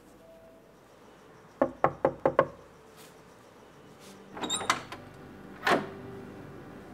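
Four quick knocks on a door, then a short metallic rattle and a single click as the door's latch is worked and the door opened.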